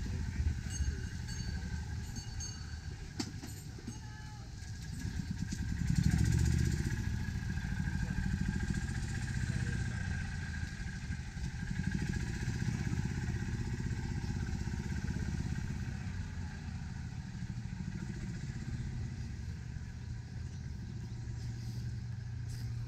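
Engine of a small utility cart running as it drives along the path, a low rumble that swells about six seconds in and again around twelve seconds.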